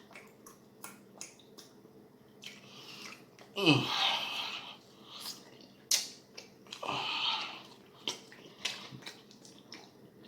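Close-up wet chewing and lip-smacking of someone eating sticky BBQ ribs and macaroni and cheese: many short smacking clicks, and two longer, louder sucking mouth sounds about four and seven seconds in.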